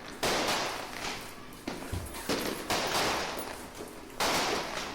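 Firecrackers bursting in a series of sharp bangs, each dying away over about half a second, with the loudest near the start and about four seconds in.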